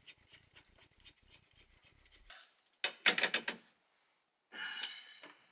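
Socket ratchet clicking as the steering wheel's centre nut is tightened, with faint quick clicks at first and a louder run of rapid clicks about three seconds in.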